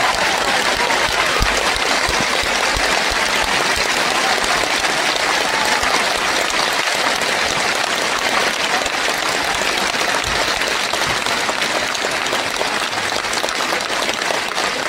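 Concert audience applauding steadily after the song ends.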